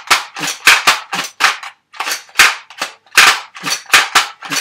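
Nerf Spectre REV-5 toy blaster being primed and fired empty over and over: a quick run of sharp plastic clacks and plunger snaps, about three a second, with a short pause about two seconds in.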